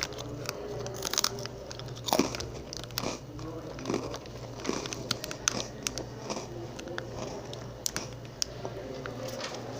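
Crunchy cookies being bitten and chewed close to the microphone: irregular sharp crunches, several a second, over a faint steady low hum.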